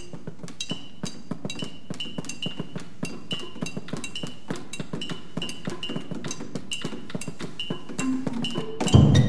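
Percussion ensemble performing: a fast, even clicking pattern with short high ringing notes repeating over it. Near the end a few rising mallet notes lead into a loud low hit as more instruments come in.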